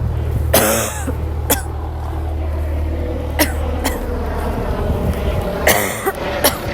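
A sick woman coughing: about five separate coughs, the two heaviest about half a second in and near the end, with shorter ones between, from a raw, sore throat. A low steady hum sits underneath and fades about four seconds in.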